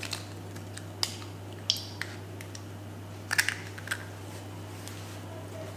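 Kitchen knife prising apart baked chocolate-almond biscuits on a parchment-lined baking tray: a few scattered sharp clicks and snaps, with a quick cluster of them about three and a half seconds in, over a steady low hum.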